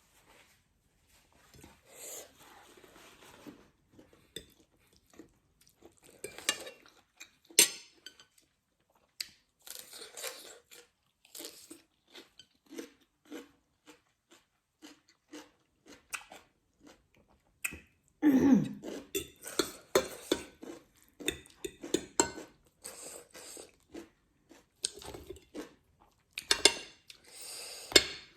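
Close-miked eating: a person chewing food with wet mouth sounds, with irregular clinks of cutlery against a dish. The eating noises grow denser and louder about two-thirds of the way through.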